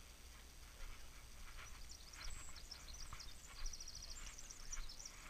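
Faint footsteps on a wooden plank boardwalk, about two a second, with small birds singing, including a quick trill of short repeated notes about four seconds in.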